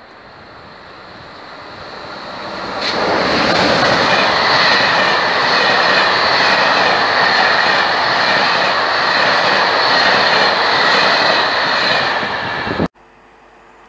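Corail passenger train hauled by a BB 22200 electric locomotive passing at speed: the rush of wheels on rail builds over the first three seconds, then holds loud and steady with a high whine running through it, and cuts off abruptly near the end.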